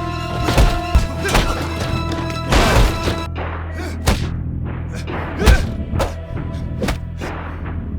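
Martial-arts fight soundtrack: a dozen or so punch and body-impact hits land at irregular intervals over a sustained music score with steady held low notes.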